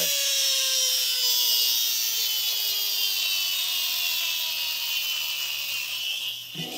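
Max mini tow truck toy whirring as its wheels spin freely, with the truck held upside down: a high whine whose pitch falls slowly before it fades near the end.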